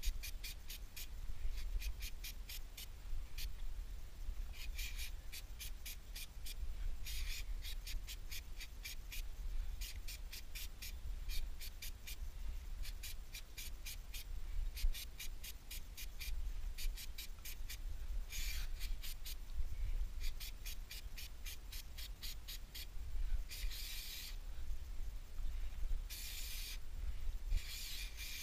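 Aerosol chain lube sprayed onto a motorcycle drive chain in several short hissing bursts, more often near the end, over a constant run of quick, light ticks.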